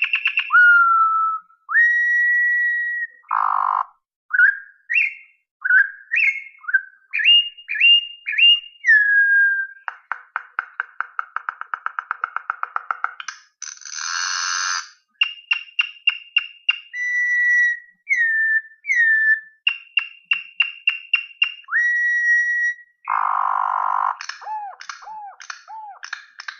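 Campo troupial (corrupião) singing: a long run of loud, clear whistled phrases, many notes sliding up or down. Between them come fast dry rattles of clicks and a few harsh, scratchy notes.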